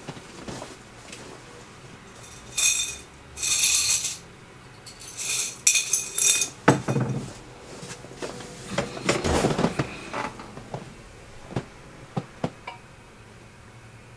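Rummaging among small metal objects: three bursts of clinking and jingling, then knocks and handling sounds and a few sharp clicks near the end, as someone searches for a coin.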